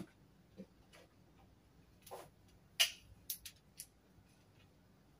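Scattered clicks and knocks of objects being handled at a desk: a soft knock under a second in, a brief scrape about two seconds in, the loudest sharp click near three seconds, then three quick ticks.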